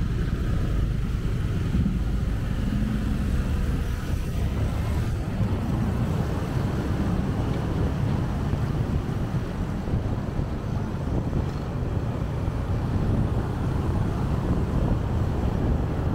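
Steady wind rush over the microphone of a moving motorcycle, with road and traffic noise underneath.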